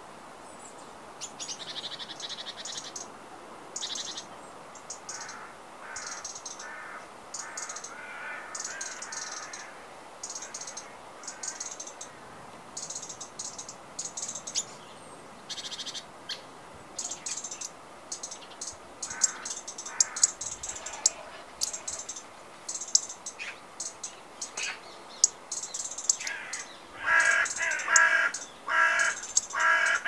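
Wild birds calling: quick, high chirps repeating throughout, then a larger bird giving a run of loud, repeated calls near the end.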